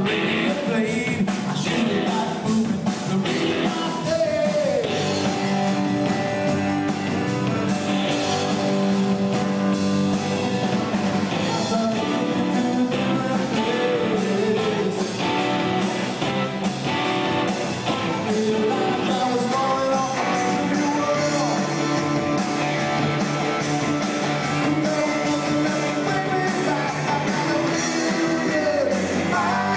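Live rock band playing a song: electric guitars and a drum kit, with a singer at the microphone.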